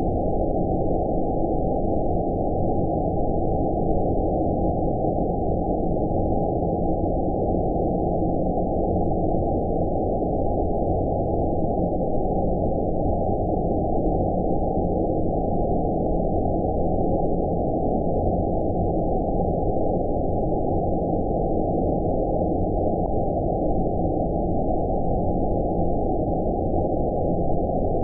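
Steady, deep, muffled noise with no high end, unchanging throughout: a low-filtered 'outer space' white-noise sleep track.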